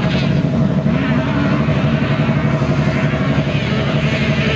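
Autocross race cars' engines running on a dirt track: a steady rumble, with engine notes wavering up and down in pitch as the cars lap.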